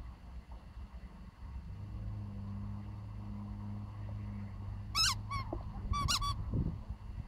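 Rubber chicken dog toy squeaking several times as a puppy bites it: one squeak about five seconds in, a weaker one just after, then a quick double squeak a second later, each dropping in pitch. A low steady hum runs underneath until the squeaks.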